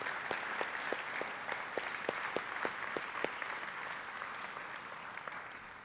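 Congregation applauding, the clapping slowly dying away near the end.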